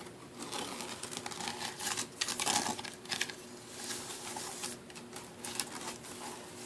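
Scratching on a wicker picnic basket: a run of quick, irregular crisp clicks and crackles.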